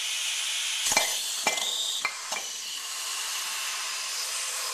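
Compressed air hissing steadily from an air blow gun into the back of a disc brake caliper, pressurising it to blow the piston seal out around the piston. A few sharp metal knocks come in the first two seconds or so.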